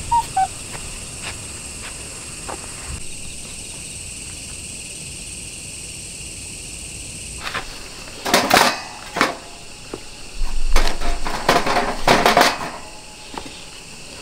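Insects chirping steadily for the first half. After that, split firewood pieces clatter and knock several times as they are laid into the grate of a metal fire pit.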